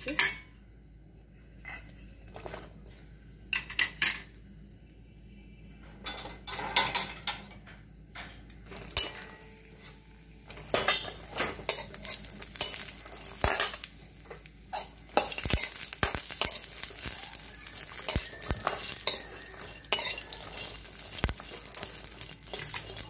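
A steel spoon clinking and scraping in a stainless steel kadai as raw coconut pieces and green chillies are stirred in oil, at first in scattered knocks. From about midway a steady sizzle of the frying runs under the scraping.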